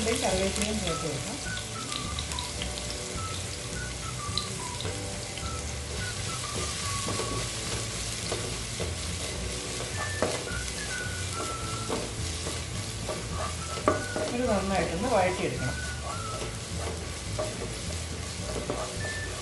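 Beef frying in a pan with a steady sizzle, stirred now and then with a spatula that scrapes against the pan, most often in the second half.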